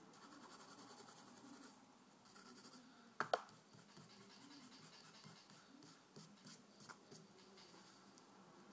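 Faint pencil strokes scratching on paper, in short repeated passes. Two sharp clicks a little after three seconds in are the loudest sounds, with a few smaller clicks later on.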